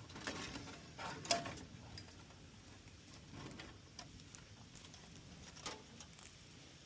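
Faint scattered clicks and rustling from hands handling car parts, with sharper clicks about a second in and near the end.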